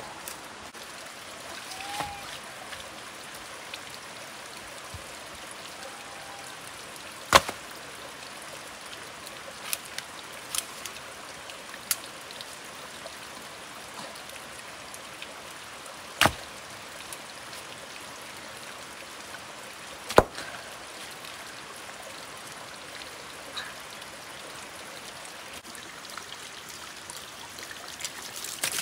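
Steady rush of running water, broken by a few sharp knocks: three loud ones spread well apart and some fainter taps between them.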